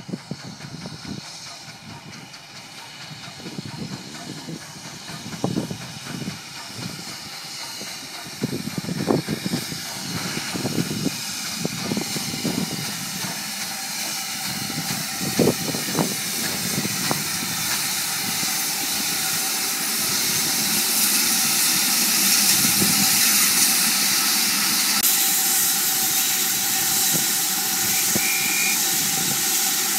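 BR Standard Class 4 2-6-4 tank locomotive 80080 running into a platform and stopping, with a hiss of escaping steam that swells from about ten seconds in and then holds steady and loud. Low, irregular thumps sit under it in the first half.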